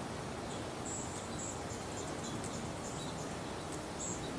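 Steady background noise with several short, high chirps, a cluster about a second in and another near the end.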